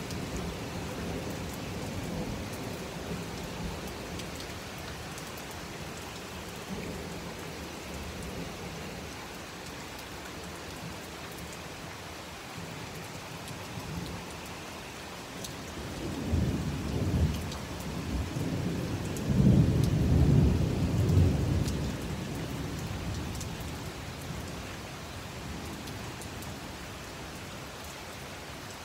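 Heavy rain falling steadily, with thunder rumbling: a low roll near the start, then a louder rolling peal that builds about sixteen seconds in, is loudest around twenty seconds and dies back into the rain.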